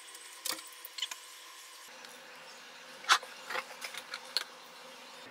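Several short, light clicks and clinks over a faint steady hiss, the loudest about three seconds in: small objects being handled on a desk.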